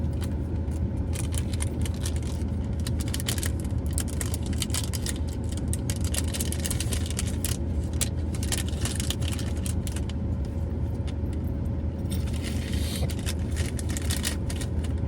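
Small metal jewelry clinking and jingling, with light rustling, as a gift is handled, over a steady low hum.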